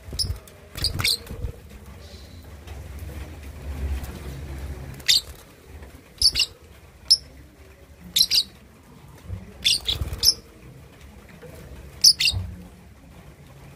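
Young lovebird, about two and a half months old, giving short sharp chirps, singly or in pairs, every one to three seconds: a juvenile still learning its chattering 'ngekek' song.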